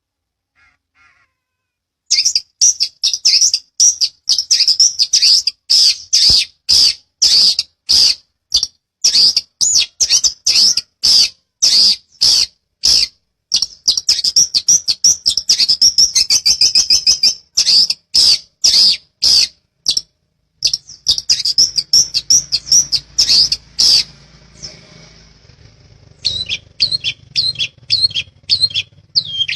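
Long-tailed shrike (cendet) singing a loud, rapid run of sharp, high chattering notes, several a second, with a brief pause near the end before the notes start again.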